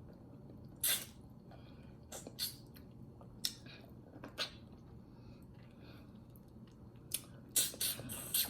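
Close-miked chewing of oxtail and fried dumpling: irregular wet mouth smacks and clicks, with a cluster of louder smacks near the end.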